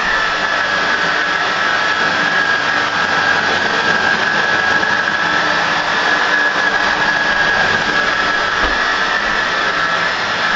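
Hoover WindTunnel Air vacuum cleaner running steadily, its motor giving a high, steady whine over a rushing airflow.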